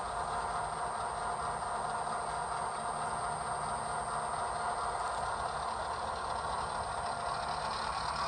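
Recorded diesel locomotive prime mover idling steadily, played by an ESU HO sound decoder through a small Bluetooth speaker inside a model boxcar.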